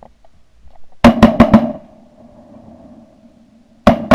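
Shotguns firing at ducks overhead: a rapid volley of four shots in about half a second, about a second in, then another volley starting just before the end. The shots come too close together for one gun, so several hunters are firing at once.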